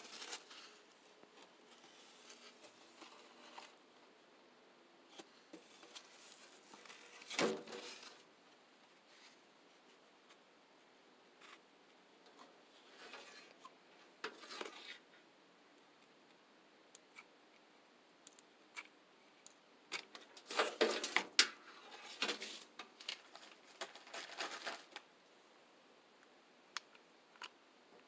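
Corrugated cardboard sheets being handled on a tabletop: sliding, scraping and rustling in scattered bursts, with one sharp scrape about seven seconds in and a busier stretch of scraping and rustling about twenty seconds in.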